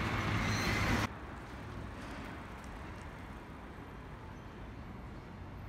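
Street traffic noise at a city intersection that cuts off abruptly about a second in, giving way to a much quieter, low steady background rumble.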